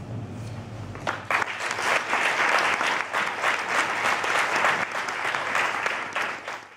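Audience applauding, the clapping breaking out about a second in.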